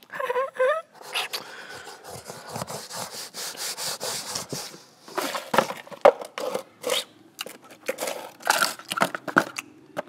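Rustling and rubbing of clothing and hands as a baby monkey is held and handled, with scattered light clicks and knocks. Near the start there are two short high squeals from the baby monkey.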